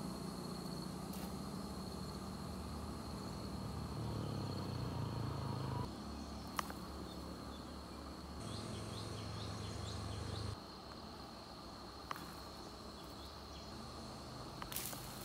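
An insect's steady high-pitched drone over a low outdoor rumble, with a few short chirps near the middle and a couple of faint clicks.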